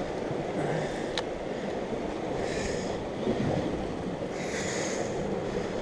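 Sea surf washing on the rocks, with wind on the microphone. The hiss swells twice, and there is one sharp click about a second in.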